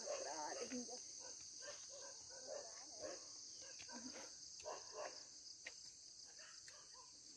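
A steady high-pitched insect chorus, typical of crickets, with faint voices talking now and then.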